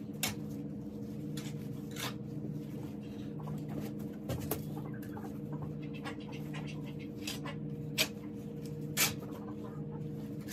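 Scattered scrapes and knocks of a shovel scraping soiled bedding off a chicken-coop floor, over a steady low hum and low, repeated chicken clucking.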